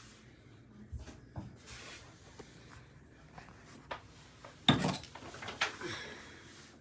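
A scattering of short clicks and knocks, with a louder clattering burst about five seconds in and another sharp knock just after.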